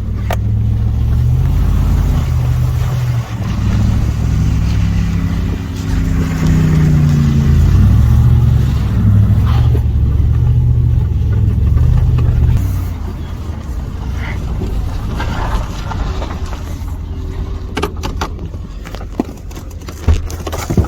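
Vehicle engine running under load while driving, its pitch rising and falling as it revs, then easing off and quieter about two-thirds of the way through. A few sharp knocks and rattles come near the end.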